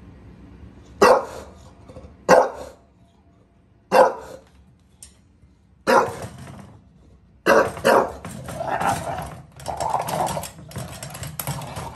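English bulldog barking six times, single sharp barks a second or two apart with the last two close together, then a continuous growling grumble mixed with clicking and rattling from the pet gate it is pawing and nosing.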